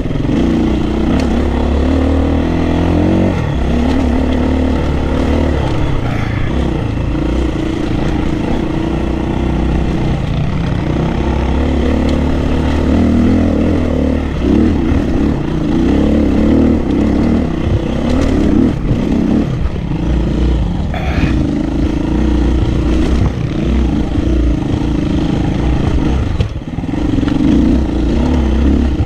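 KTM dirt bike engine running, the throttle opening and closing as the bike climbs over rock, so the pitch rises and falls. There is a brief dip in the sound near the end.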